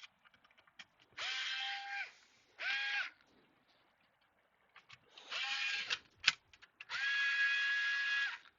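Small electric screwdriver spinning four times in short runs, each whine rising quickly to a steady pitch and dropping off when it stops; the longest run comes near the end. There is a sharp click between the third and fourth runs.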